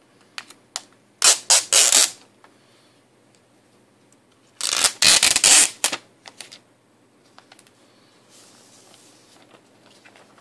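Plastic protective wrap on a new iPad mini crinkling as it is peeled off, in two loud rustling bursts of about a second each. Light clicks and taps of handling come between them.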